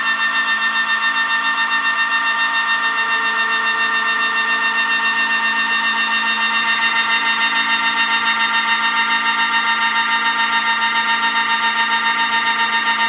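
Motorised cutter on an MDF rose engine running at speed with a loud, steady high whine while it cuts a wavy pumped pattern into a turning wooden blank. The pitch rises slightly in the first second, then holds, and the sound pulses evenly several times a second.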